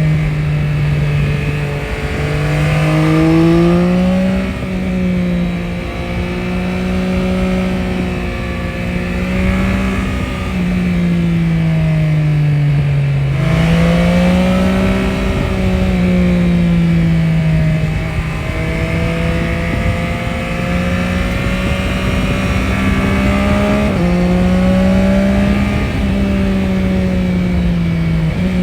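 Yamaha Tracer 9 GT's three-cylinder CP3 engine running with its exhaust note rising and falling gently as the throttle varies. About halfway and again near the end the pitch jumps up suddenly, as with a gear change.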